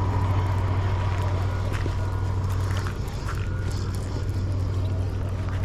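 A steady low engine hum, easing a little about three seconds in, with a few faint short chirps above it.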